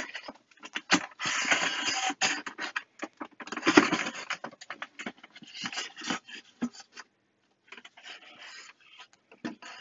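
Moulded polystyrene foam packing scraping and rubbing against the oscilloscope case and the box as it is worked loose and lifted off, in several noisy bursts, fainter over the last couple of seconds.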